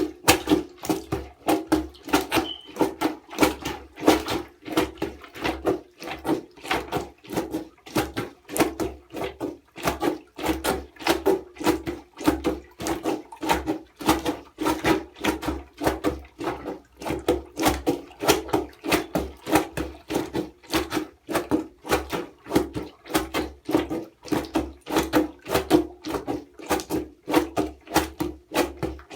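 Homemade plunger washer, a cut plastic bottle on a broom handle, pumped up and down in a bucket of water and clothes, each stroke a sharp slosh in a steady rhythm.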